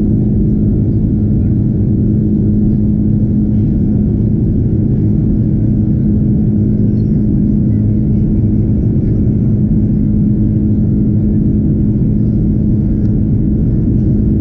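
Cabin noise of an Airbus A330 in its climb after takeoff, heard at a window seat beside the wing and its Rolls-Royce Trent 700 engine: a steady, loud drone of engine and airflow, a deep rumble with one steady hum tone over it.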